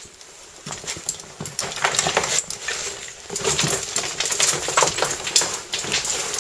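Irregular scuffing and scraping of a caver's oversuit, helmet and gear bag against the rock while squeezing through a narrow cave passage. It starts after a quiet first second.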